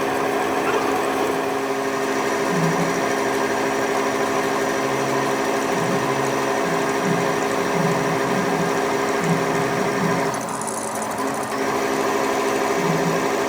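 A workshop machine tool running steadily with a constant hum made of several steady tones, its upper hiss briefly dropping away about ten seconds in before returning.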